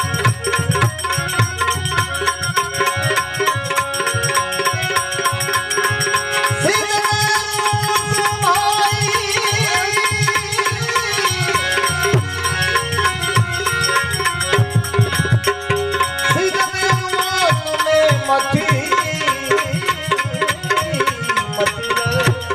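Instrumental break in a Gujarati bhajan: a fast hand-drum rhythm under a melody line, between sung lines of the refrain.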